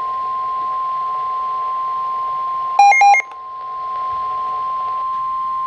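NOAA Weather Radio's 1050 Hz warning alarm tone, a single steady high tone announcing a warning-level alert. About three seconds in, a quick burst of louder electronic beeps sounds over it.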